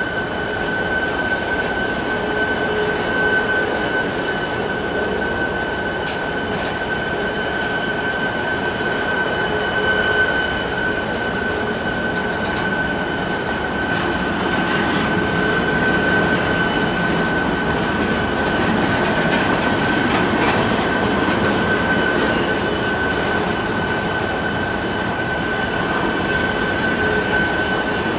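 A train running on the rails, a continuous rumble with a steady high-pitched whine and occasional faint clicks.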